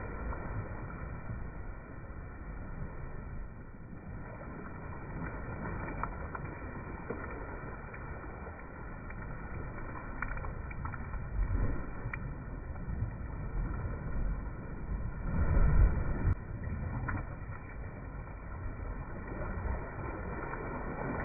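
Waves and water splashing at the shore, heard as a continuous low, rumbling wash. It swells to a louder surge about three-quarters of the way through.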